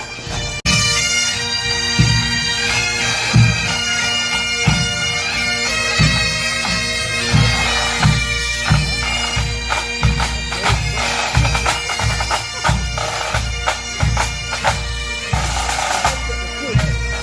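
Pipe band playing: Highland bagpipes sound a melody over their steady drones, with a bass drum keeping a regular beat. The music cuts in abruptly about half a second in.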